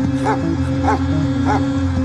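A tracking dog barking three times, about half a second apart, over a steady drone of dramatic film score.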